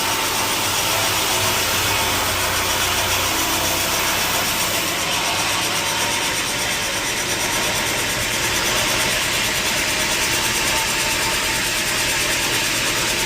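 Sawmill machinery running steadily with a dense mechanical noise, engine-like, that keeps an even level throughout.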